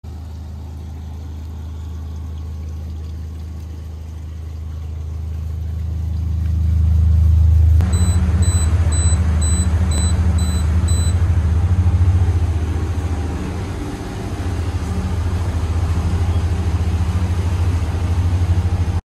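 Boat's outboard engines running with a steady low hum that swells and then turns rougher. A short run of evenly spaced electronic beeps, about two a second, sounds over it near the middle.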